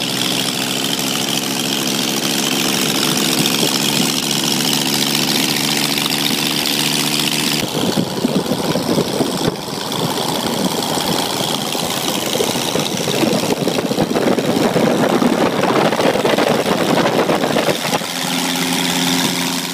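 Megola 640's five-cylinder rotary engine, built into the front wheel, running as the motorcycle is ridden. A steady, even note at first; about eight seconds in, the sound turns rougher and choppier, then steadies again near the end.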